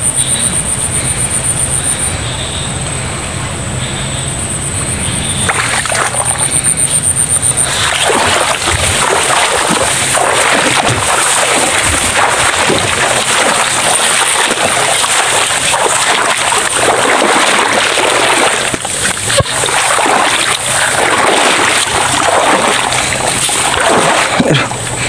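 Footsteps sloshing and splashing through flooded swamp grass, with wet vegetation brushing past, busiest from about seven seconds in. Over the first several seconds a steady, high-pitched pulsing buzz is heard, and it stops suddenly.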